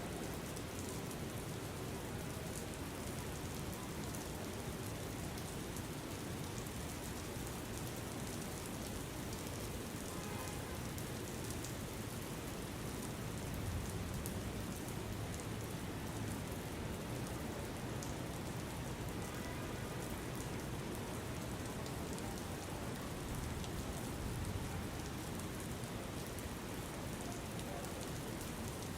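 Steady rain falling, an even patter of many drops with no break.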